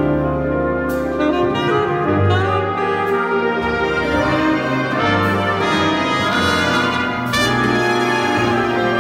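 Jazz big band playing, its brass section of trumpets and trombones sounding held chords over a moving bass line.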